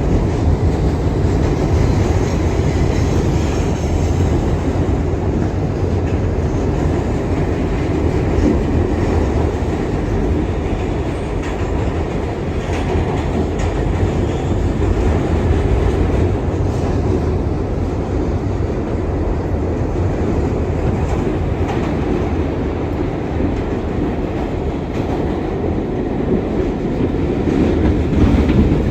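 R62 subway car running steadily at speed through the tunnel: a continuous low rumble of steel wheels on rail, with clickety-clack over the rail joints. It grows slightly louder near the end.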